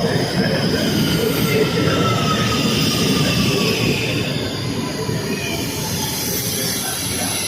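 Train running on the rails: a loud, steady rumble with thin high squealing tones from the wheels that slowly fall in pitch.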